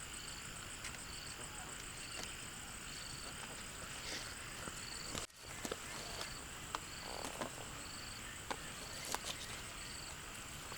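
Insects chirping outdoors: a steady high buzz with a short, higher chirp repeating about every two-thirds of a second. Scattered sharp clicks and rustles come through, and the sound drops out briefly about five seconds in.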